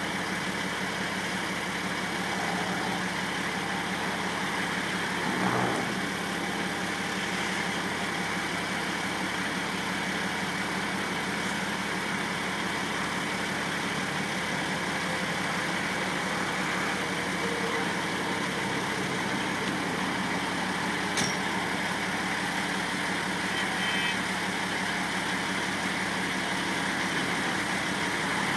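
Heavy vehicle engines idling in a steady drone, with a brief thump about five seconds in and a sharp click later on.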